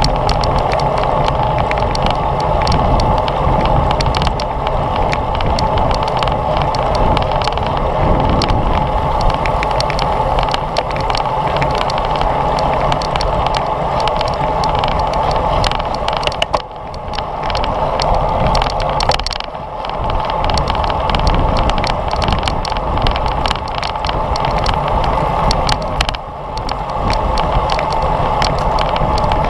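Steady wind rush and road noise picked up by a GoPro on a racing bicycle moving at speed, with brief dips in level three times in the second half.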